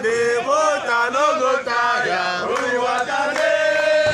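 Men's voices chanting together in a sung, rhythmic chant, going into one long held note near the end.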